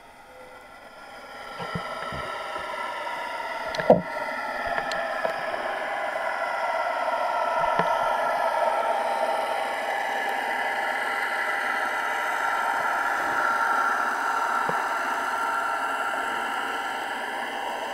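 Motorboat engine and propeller heard underwater: a steady, many-toned hum that builds up over the first couple of seconds and then holds. A sharp knock about four seconds in, with a few fainter clicks.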